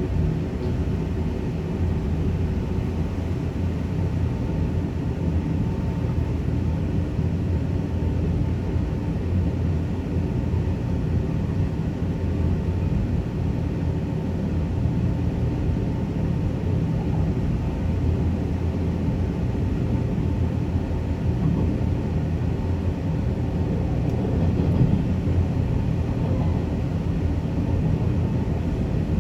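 Zipangu Hiraizumi train running steadily, a continuous even rumble of wheels on rail and running gear with no change in pace.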